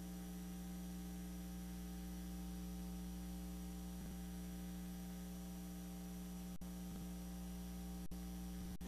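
Steady electrical mains hum with a faint hiss in the audio line, cut by three very short dropouts in the last few seconds.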